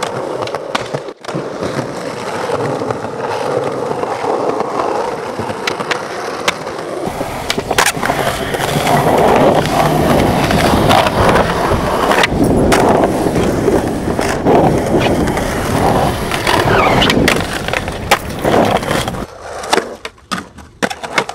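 Skateboards rolling on concrete, with the sharp snaps and clacks of tails popping and boards landing, and the board scraping along a concrete ledge near the end. The sound changes abruptly several times.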